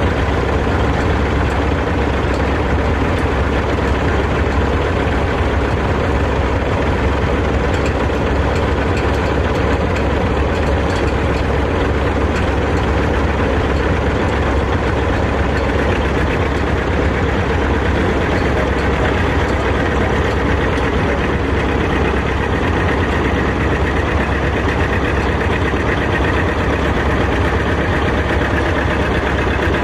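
Vintage two-cylinder John Deere tractor engine running steadily under load as it drags a tractor-pull weight sled.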